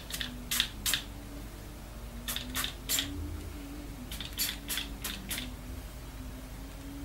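Aerosol anti-frizz hairspray sprayed onto hair in short puffs: three groups of quick sprays, the last group just after the middle.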